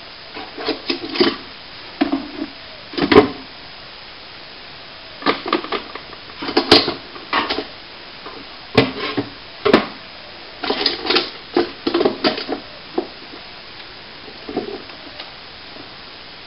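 Irregular clatter of hard objects being handled: clusters of knocks, clinks and short scrapes in bursts, with pauses of a second or two between them.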